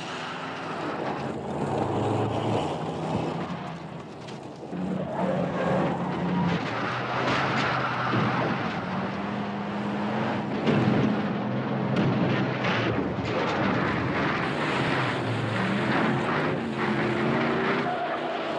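Car-chase sound effects: pickup truck and sedan engines running hard, their pitch stepping up and down, over the grit of tyres on a dirt road. A heavy thump a little over halfway through as the truck lands from a jump.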